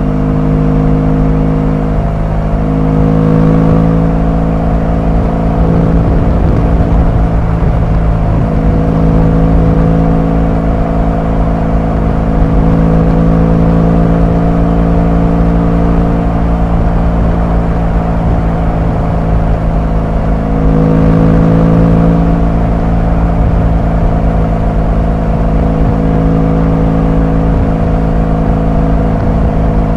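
Motorcycle engine and exhaust heard from the riding position at a steady road speed, with a dense low rumble underneath. The engine note shifts slightly about two seconds in and again about twenty seconds in.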